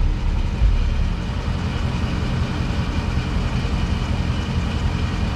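2015 Dodge Charger's engine idling steadily.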